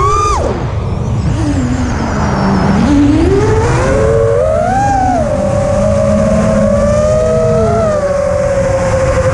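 FPV quadcopter's brushless motors and propellers whining, the pitch following the throttle: it climbs, cuts sharply just after the start, rises again and then holds fairly steady through the second half. A steady low rumble runs underneath.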